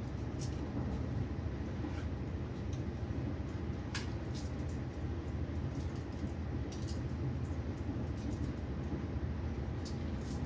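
Steady low rumble of a Railjet passenger train running at speed, heard from inside the coach, with scattered faint high ticks.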